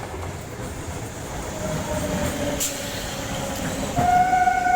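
Electric multiple-unit train running along the track, its rumble growing louder, with a sharp click about halfway through. About four seconds in, a loud steady horn starts.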